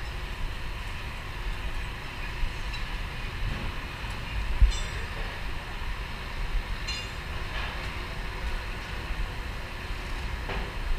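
Wind buffeting an action camera's microphone high on an open steel frame, a steady rumble with a harder gust about four and a half seconds in. Two faint high clinks come through, one with that gust and one about seven seconds in.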